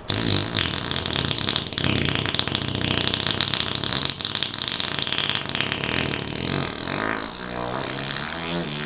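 A long, continuous fart, rough and rattling, that turns into a wavering, buzzy pitched tone near the end.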